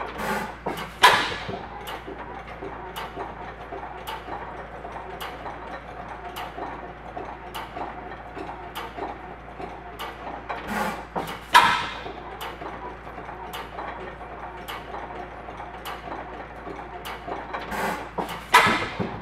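International Harvester 10 hp Famous stationary engine running unloaded: three loud firing bangs, about a second in, in the middle and near the end, with a steady clicking of the valve gear, a bit over one click a second, while it coasts between them. The widely spaced firing is typical of a hit-and-miss governor at light load.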